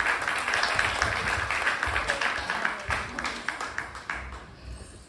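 Small audience applauding, the clapping thinning out and dying away about four seconds in.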